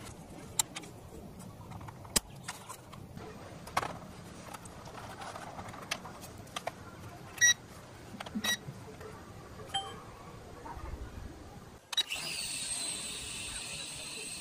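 Clicks and snaps of the plastic phone clamp on a toy quadcopter's controller as it is opened and a phone is fitted, with a few short electronic beeps about halfway through. About 12 s in, a steady high whine starts: the small toy quadcopter's motors and propellers spinning up.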